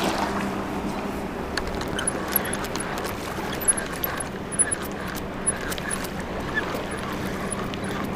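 Steady wind and water noise around an angler standing in shallow water, with a faint low hum and scattered light ticks and clicks.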